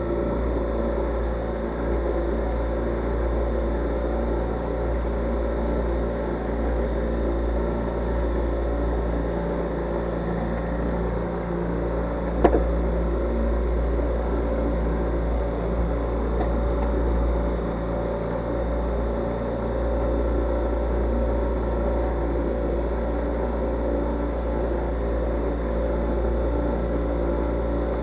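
Boat engine running steadily while the boat is underway, with a low rumble; a single sharp knock about twelve seconds in.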